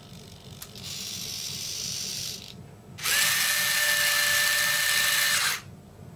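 RCLander electric landing-gear and gear-door system cycling down on a model aircraft: a click, then a fainter electric whir for about a second and a half as the gear doors open. After a short pause, a louder steady motor whine with a fixed pitch runs for about two and a half seconds as the electric retracts swing the legs down, then cuts off sharply.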